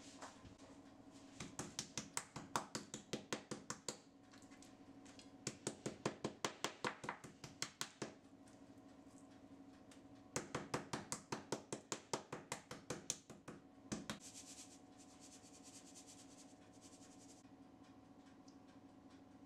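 Back of a metal spoon tapping quickly on thin chicken breast fillets on a wooden cutting board, flattening them: three runs of sharp taps, about six a second, each a few seconds long. A soft hiss follows for a few seconds after the last run.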